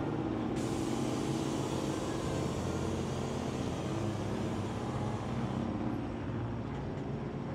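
A car engine idling steadily, a low even hum with some hiss above it.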